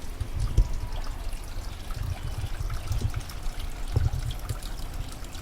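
Water trickling along a garden pond's small stream channel, with low rumbles that come and go.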